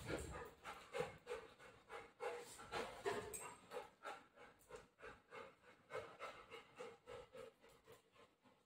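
Golden retriever panting steadily, about three breaths a second, faint.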